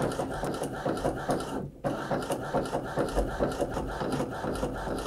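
Epson EcoTank ET-4760 inkjet printer running as it prints and feeds out a 4x6 glossy photo, a steady mechanical whirring made of fast, even ticks. It briefly cuts out just under two seconds in, then carries on.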